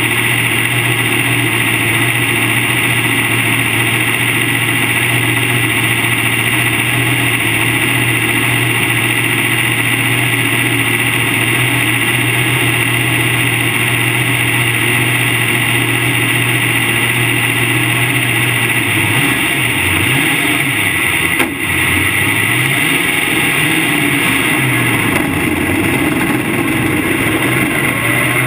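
Modified race car's V8 engine heard from inside the cockpit, idling steadily. About two-thirds of the way through, the revs begin to rise and fall several times as the car pulls away.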